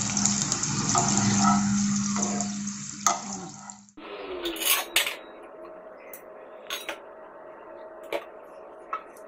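Papad frying in hot oil in a pan: a loud, dense sizzle that stops abruptly about four seconds in. It is followed by quieter scattered clicks and rustles.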